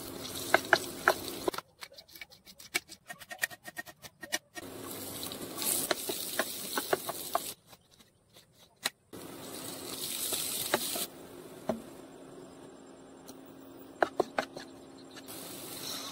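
A run of cooking sounds: garlic sizzling in oil in a frying pan, with a wooden spatula scraping and tapping the pan, alternating with a kitchen knife chopping quickly on a cutting board and slicing a tomato.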